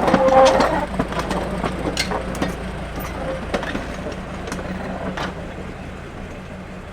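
Diesel locomotive running steadily, with scattered metallic clanks and knocks, fading slowly.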